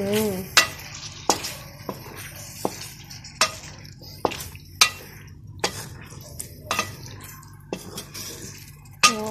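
A spatula stirring a thick sauce with chicken and vegetables in a wok, knocking and scraping against the pan about once a second.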